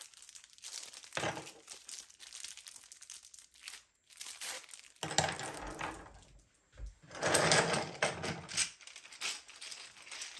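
Clear plastic packaging crinkling and rustling in irregular bursts as makeup brushes are handled and unwrapped, with a few light knocks as brushes are set down on the desk; the longest, loudest rustle comes about seven seconds in.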